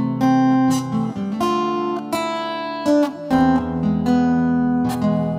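Acoustic guitar playing the song in A minor: plucked notes and chords, moving from A minor with a C in the bass to an E chord, whose lower bass comes in about three seconds in.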